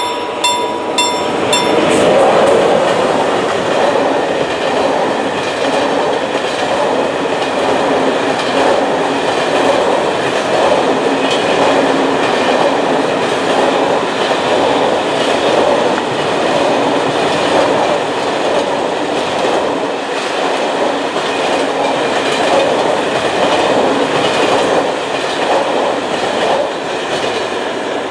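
Level-crossing bell ringing about twice a second and fading out about two seconds in as a freight train reaches the crossing. The train then passes at speed, a long line of wagons loaded with logs, with a steady rolling roar and clickety-clack from the wheels on the rail joints.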